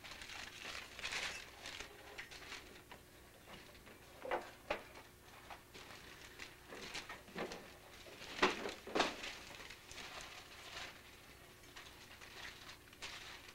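Faint, irregular rustling and crinkling of wrapping paper as presents are unwrapped, with two louder crinkles a little past halfway.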